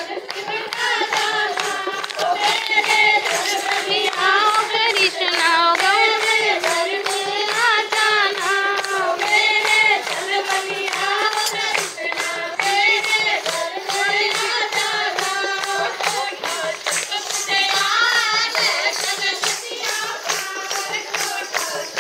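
A group of women singing a Pahari folk song together, with a steady beat of hand claps.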